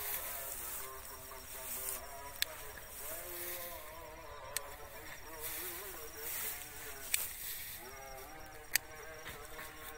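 Small scissors snipping the main shoots of watermelon seedlings: four sharp clicks, a second or two apart.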